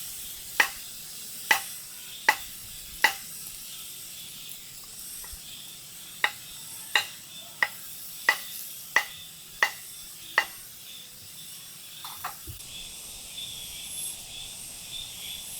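Food sizzling faintly in a pan, with about a dozen sharp clicks or taps at irregular intervals over the first ten seconds, then a couple of faint ones.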